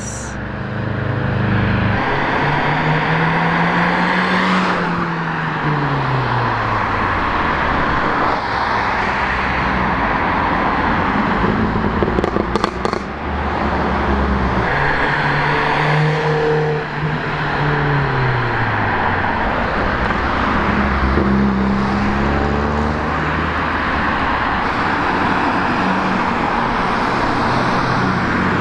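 Cars driving past one after another, each engine note rising and then falling away as it goes by, over continuous road noise. A short cluster of sharp cracks comes about twelve seconds in.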